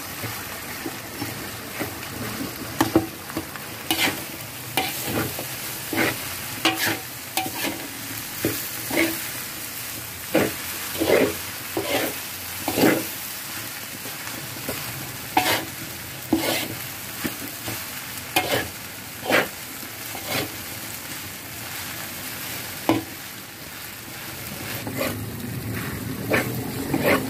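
A metal spatula scraping and knocking against a metal wok in irregular strokes as fried rice is tossed and turned, over a steady sizzle of frying.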